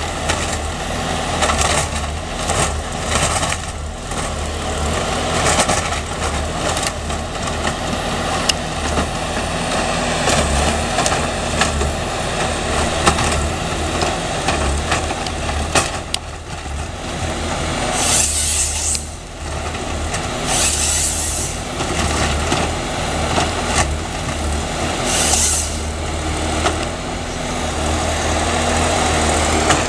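Valmet 941.1 harvester's diesel engine running steadily while the harvester head processes pine logs, with three short hissing bursts in the second half.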